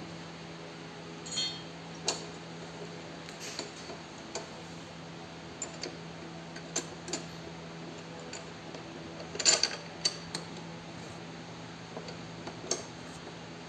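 Irregular metallic clicks and clinks of steel parts and bolts knocking together as a metal strip is fitted to a seed drill's frame by hand, loudest in a quick cluster a little past halfway. A steady low hum runs underneath.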